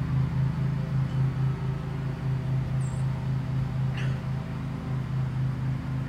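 An engine running steadily at idle, a low hum with a regular throb about three times a second.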